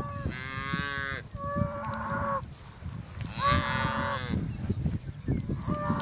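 Cattle mooing: three drawn-out moos, each about a second long, one after another in the first two-thirds.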